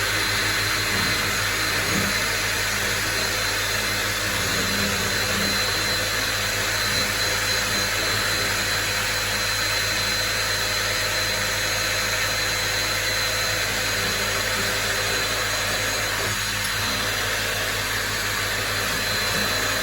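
Electric drill running steadily with a 6 mm diamond-tipped bit grinding through polished porcelain tile, an even grinding noise with a thin high whine over it. The bit is near the end of the hole, shortly before it breaks through the tile.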